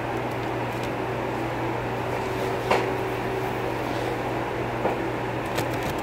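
A steady low mechanical hum and hiss of room noise, with a few faint clicks and smacks from chewing and handling food.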